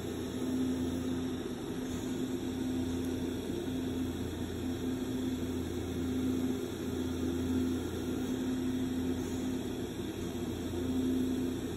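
Bench glassworking torch flame hissing steadily, with a steady low hum underneath.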